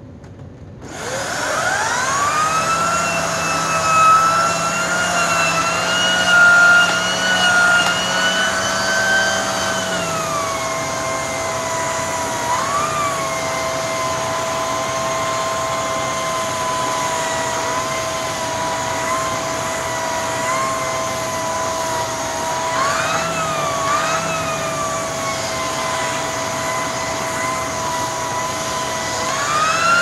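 LG Kompressor upright vacuum cleaner switching on about a second in, its motor whine rising as it spins up, then running with the hand turbo tool working on a fabric cushion. The whine drops in pitch about ten seconds in as the tool sits on the upholstery and loads the motor, and rises again near the end as the tool is lifted off.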